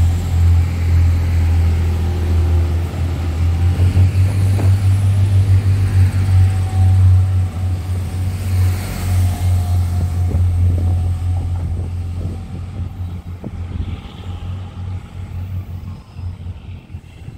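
Irish Rail diesel multiple-unit train passing at speed: a steady low rumble of the underfloor engines and running gear, with wheels knocking over rail joints. It fades away from about two-thirds of the way through as the train recedes.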